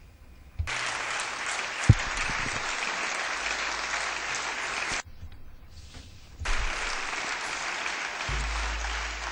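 Members of a parliament chamber applauding, starting about a second in, breaking off briefly after about five seconds and then starting again. A single sharp knock about two seconds in, and a low hum near the end.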